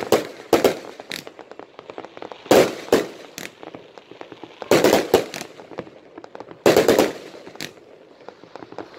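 Fireworks going off: a run of sharp bangs, several coming in quick pairs roughly every two seconds, over a constant crackle of smaller pops.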